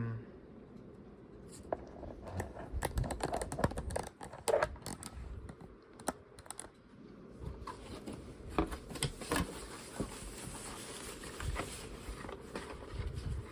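Keys of a new MSI desktop keyboard being pressed and tapped in an irregular run of clicks.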